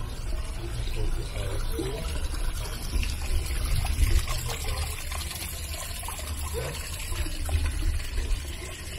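Water trickling steadily over a low rumble.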